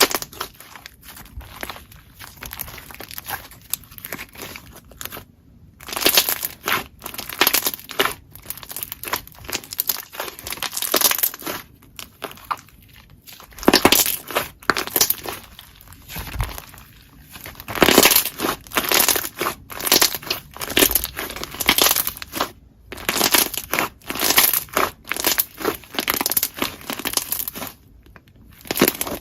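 Hands pressing, squeezing and stretching slime, giving dense crackling and popping clicks in irregular bursts with short pauses.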